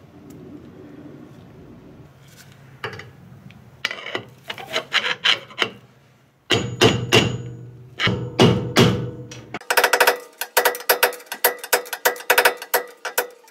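A long steel bar knocking repeatedly against the axle bearing inside a Ford 8.8 rear axle tube, the metal ringing with each strike. A few light knocks start about four seconds in, then from about six seconds the strikes come quick and loud.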